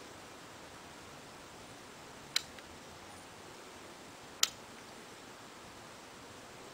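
Rotary function selector of a Uni-T UT203 clamp multimeter being turned, giving two sharp single detent clicks about two seconds apart, over a faint steady hiss.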